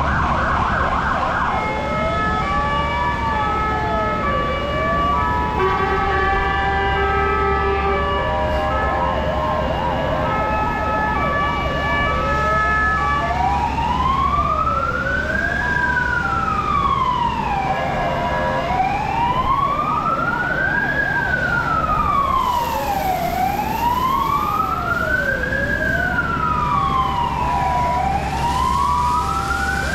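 Several fire engine sirens sounding at once: steady alternating tones throughout, and from about twelve seconds in a wailing siren that rises and falls roughly every five seconds.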